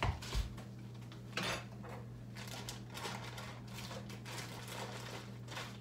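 Kitchen clatter: scattered short clinks and knocks of dishes and utensils being handled, at irregular intervals over a steady low hum.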